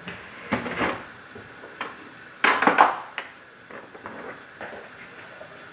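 Kitchen handling noise: a few clatters and knocks, the loudest about two and a half seconds in, followed by small clicks, over a faint steady hiss.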